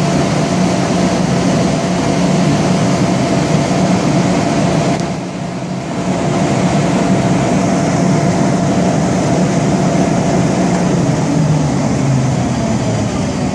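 Kaeser CS 121 100 HP rotary screw air compressor with a rebuilt airend running unloaded at idle, a steady hum with a tone through it. Near the end the machine shuts off and begins to wind down, its sound falling in pitch and level.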